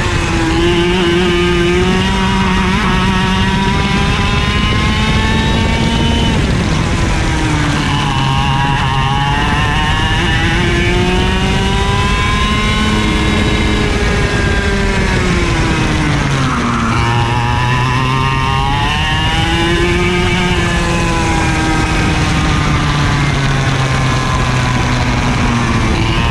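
IAME KA100 100cc two-stroke kart engine running on board, its pitch rising and falling as the throttle is worked. The pitch drops sharply about six seconds in and again around sixteen seconds, then climbs back.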